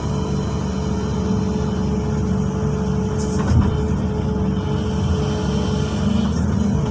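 XCMG 215C excavator's diesel engine running steadily under working load, heard from inside the cab, with a steady whine over the engine. A brief hiss and a single thump come about three and a half seconds in as the bucket works the soil.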